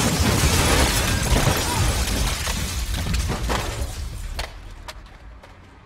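Crash of a lorry into a car: crunching impact noise with breaking glass, scattered clatters of debris, dying away over several seconds.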